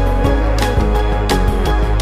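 Background music with drum hits and a deep bass line under sustained melodic notes.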